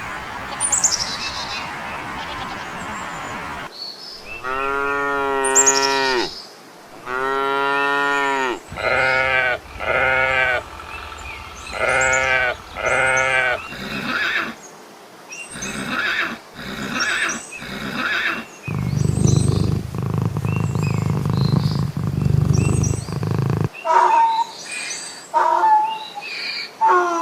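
A series of farm animal calls: two long, drawn-out pitched calls, then several shorter calls in quick pairs, a low rumbling stretch, and short high yelps near the end.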